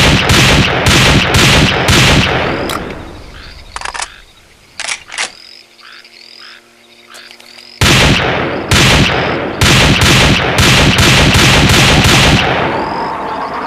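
SVD Dragunov semi-automatic sniper rifle (7.62×54mmR) firing in quick strings, about two or three shots a second. It fires a short string, pauses a few seconds with a few light clicks, then fires a longer string that ends in a rolling echo.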